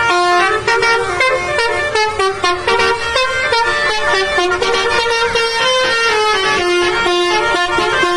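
A basuri musical vehicle horn (telolet) playing a tune: a run of loud horn notes stepping up and down in pitch, sounding continuously.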